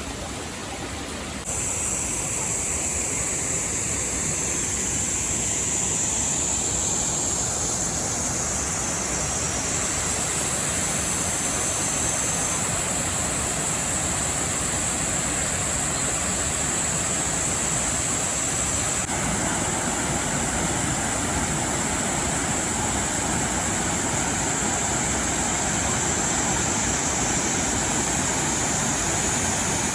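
Rushing water of a mountain river and its falls, a steady loud hiss. A steady high-pitched drone joins about a second and a half in, and the rush grows fuller a little past halfway.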